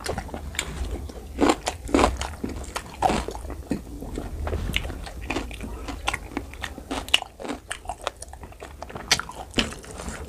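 Close-miked eating: a person chewing and biting pork curry with rice and raw salad, with irregular crunches and wet mouth clicks.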